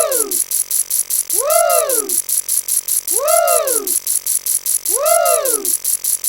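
Looping sound effect: rapid, even ticking like a ratchet, with a pitched tone that swoops up and back down about every second and a half, four times.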